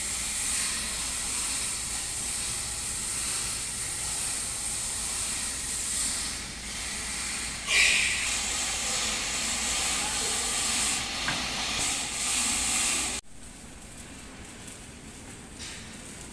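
Steady hissing, rasping noise of rust being abraded off a bushing turning in a lathe, with a brief louder scrape about 8 seconds in. It cuts off abruptly about 13 seconds in, leaving a quieter steady machine noise.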